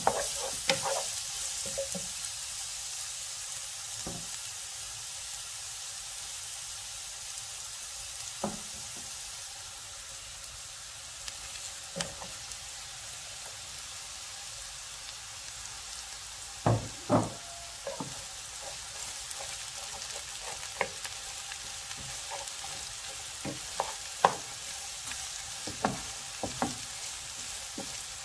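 Carrots, onion and cabbage sizzling in hot oil in a black pan, with a steady hiss while a wooden spatula stirs them, knocking and scraping against the pan. A few louder knocks come about two-thirds of the way through and again near the end.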